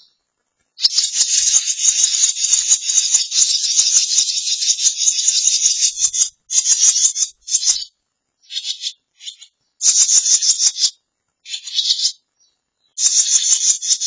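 Barn swallow nestlings giving rapid, rasping begging calls in a dense high chatter: one long stretch of about five seconds, then several shorter bursts.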